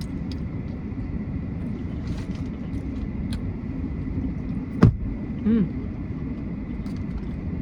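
Steady low rumble of a car's interior, with scattered small clicks and one sharper click about five seconds in.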